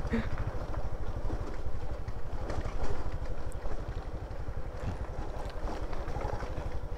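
Motorcycle engine running steadily under way, a low even rumble.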